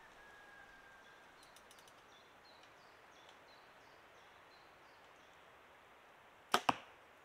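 Faint bird chirps over a quiet wood. About six and a half seconds in, a compound bow is shot: two sharp cracks in quick succession, the string's release and then the arrow striking the target.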